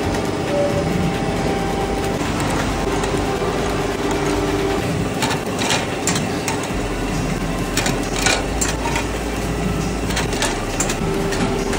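Ice lolly moulding machine running: a steady mechanical hum with metallic clicks and clatter, which come much more often from about halfway through.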